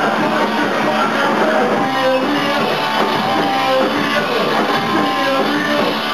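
A rock band playing live: loud, electric-guitar-driven rock in an instrumental stretch without singing.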